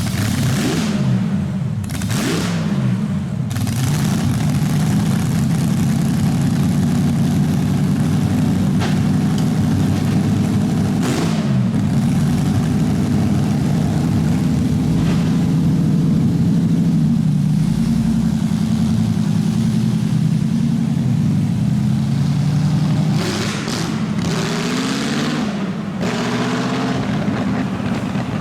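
Auto Union Type C's supercharged 6-litre V16 engine running, held at a steady speed for long stretches and revved up and down, with throttle blips near the start, once midway and several in quick succession near the end.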